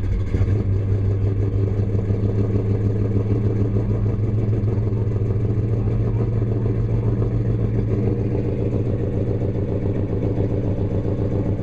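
1969 Dodge Coronet Super Bee's V8 running steadily through its exhaust, a loud, deep note held at an even engine speed without revving.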